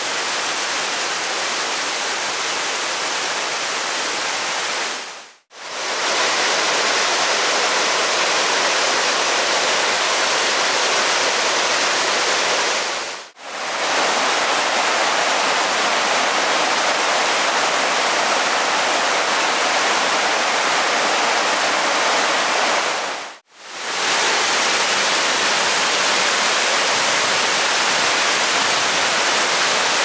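Waterfall cascades and a rushing stream: a steady hiss of falling and tumbling water, broken by three brief fades to silence.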